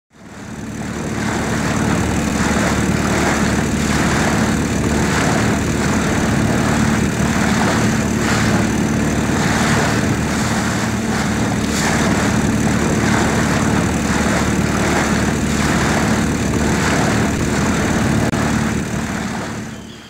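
Boat engine running steadily, fading in at the start and out near the end.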